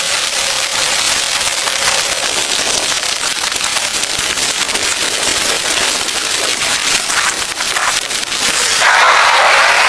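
Heavy rain falling: a dense, steady patter of countless drops with a crackling edge. About nine seconds in, a louder rushing hiss joins it.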